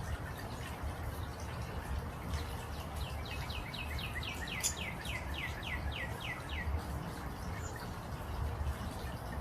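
A bird calling: a series of about fifteen quick notes, each slurring downward, at roughly four a second, starting about three seconds in and lasting nearly four seconds, over a steady low outdoor rumble.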